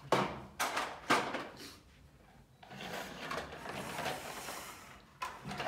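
Plastic toy trucks knocking against a wooden tabletop, with a few sharp knocks in the first second or so, then a stretch of scraping and rolling as they are pushed across the table, and another knock near the end.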